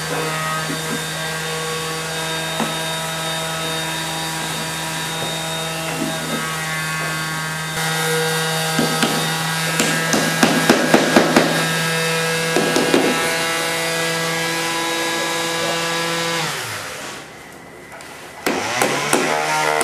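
Electric power-tool motor running steadily in a bamboo furniture workshop, winding down and stopping about 17 seconds in, then spinning back up about a second and a half later. Scattered knocks and taps of hand tools on bamboo sound over it, most of them between about 8 and 13 seconds.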